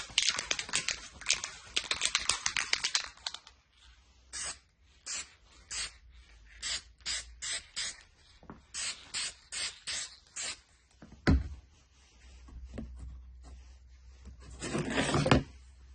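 An aerosol spray-paint can rattles densely for the first three seconds or so, the way a shaken can's mixing ball does. It then sprays a series of short hissing bursts, a dozen or more a quarter second each, with one longer spray near the end. A single sharp knock comes about two-thirds of the way through.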